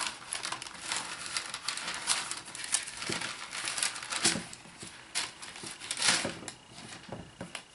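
Bible pages being leafed through: a run of quick papery rustles and flicks while searching for a passage.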